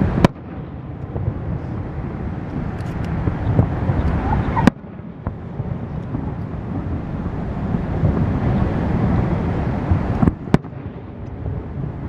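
Fireworks bursting in a continuous rumble of booms and crackle. Three sharp clicks, each followed by a sudden drop in loudness, come near the start, about midway and near the end.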